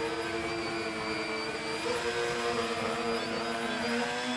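RC model Canadair CL-84 tilt-wing aircraft hovering, its motors and propellers giving a steady whine whose pitch wavers a little as the throttle is worked to hold it sideways in the wind.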